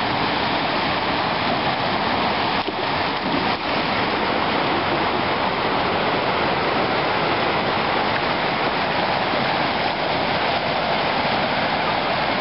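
Fast mountain creek rushing over rocks and small rapids: a steady, even rush of water.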